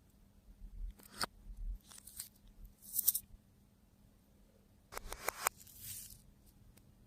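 Slime being squished and pulled apart by hand, giving sticky crackles and clicking pops in short bursts, a cluster of sharper pops about five seconds in.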